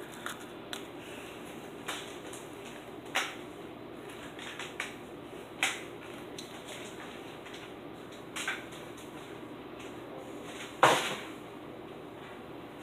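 Scattered knocks and clunks at irregular intervals, about seven in all, the loudest near the end, over a steady low hum.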